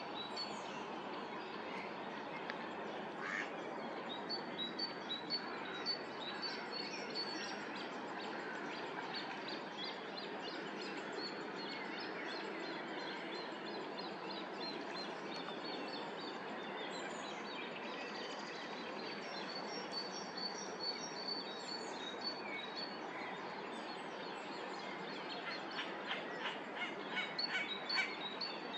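Early-morning lakeside birdsong: many small birds chirping and singing over a steady background hiss, with a run of louder, sharper calls near the end.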